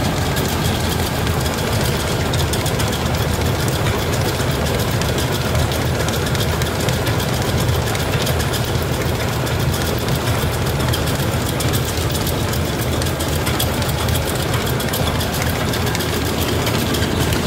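Single-cylinder stationary diesel engine running steadily and belt-driving a rice milling machine, a continuous rapid chugging with the mill's rumble.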